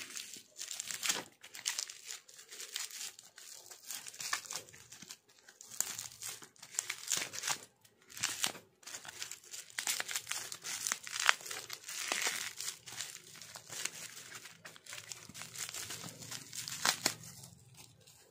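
Plastic bubble wrap crinkling and crackling as hands pull it open and peel away the sticky tape holding it shut. It comes in irregular bursts with a few short pauses.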